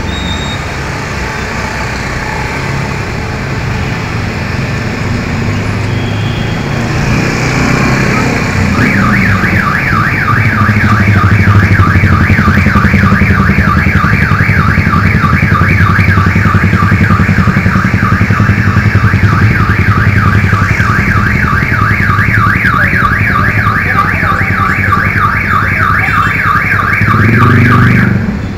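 Street traffic noise, then about nine seconds in an electronic alarm starts warbling rapidly up and down in one unbroken pattern for about twenty seconds, cutting off near the end.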